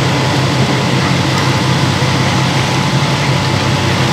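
Steady low engine hum that holds level throughout, with an even noisy haze over it.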